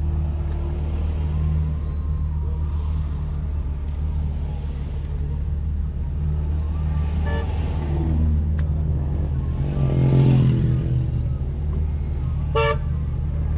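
Steady low engine and road rumble inside a car in slow traffic, with a short car horn toot about seven seconds in and another brief toot near the end.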